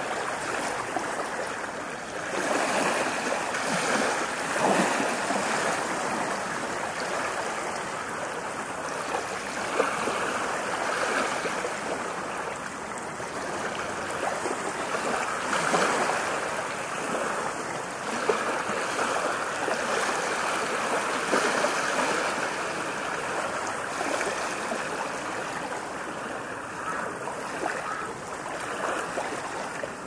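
Small ocean waves breaking gently on a sandy beach and washing up the shore: a continuous hiss of surf that swells and fades in surges every several seconds.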